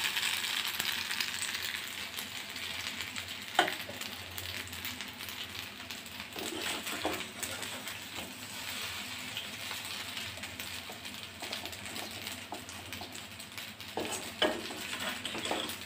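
Hot pasta sizzling in a kadai, strongest at first, with a few clinks of a steel spatula against the pan and a stainless-steel tiffin box as the pasta is scooped across.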